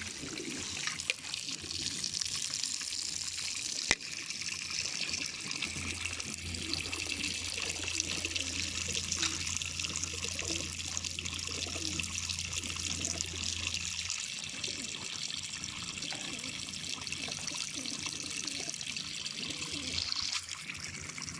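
Water running down the long drinking trough of a racing-pigeon transport trailer as it is filled, a steady trickling rush. A low steady hum joins in for several seconds in the middle.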